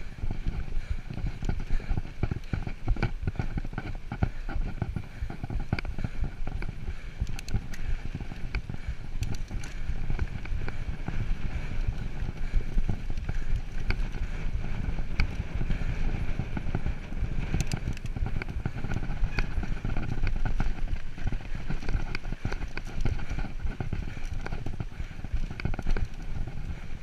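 Mountain bike ridden along a dirt singletrack: tyres rumbling over the dirt, with constant irregular clattering and knocks from the bike over bumps.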